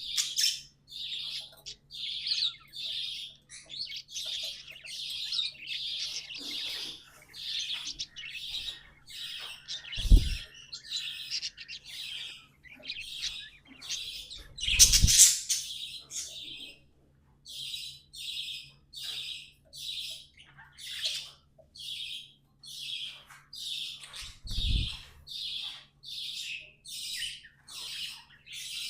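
Budgerigars chirping in quick repeated notes, about two a second, with a harsher louder call about halfway through. Three dull thumps break in, the loudest with that call.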